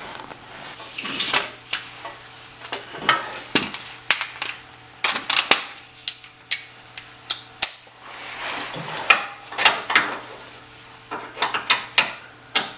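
Hand wrench and other tools clinking and knocking on the steel of a car's underside while the rack-and-pinion mounting bolts are worked loose: irregular sharp clicks and taps, over a faint steady hum.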